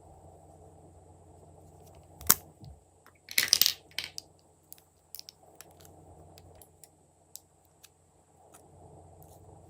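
Glossy slime being handled and mixed: a sharp click about two seconds in, a burst of crackling a second later, then scattered small clicks and pops.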